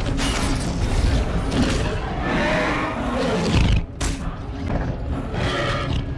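Film sound mix of a dinosaur fight: creature growls and roars with heavy thuds and crashes, over orchestral score. The sound drops out for an instant about four seconds in.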